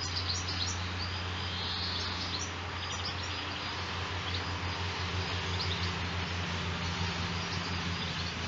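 Small songbirds chirping and twittering in woodland over a steady background hiss. A low engine hum runs underneath and becomes pulsing from about halfway through.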